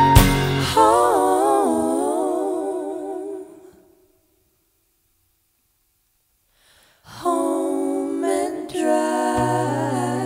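A live band's close vocal harmony, several voices holding a chord with wavering vibrato after a last strummed chord, fading out to silence about four seconds in. After about three seconds of silence the voices come back with a new held chord, and a low bass note joins near the end.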